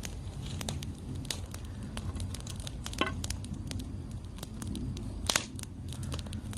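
Wood campfire crackling: irregular sharp snaps and pops over a low steady rumble, with the loudest snaps about three seconds in and again a little past five seconds.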